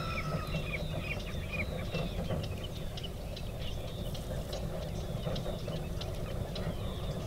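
Mustard seeds spluttering in hot oil in a clay pot: a scatter of short, sharp pops over a low steady rumble, with birds chirping in the background.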